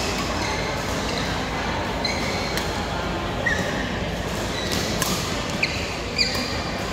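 Badminton rackets striking the shuttlecock, about four sharp hits in the second half, with short squeaks of shoes on the court floor, over the steady noise of a large hall.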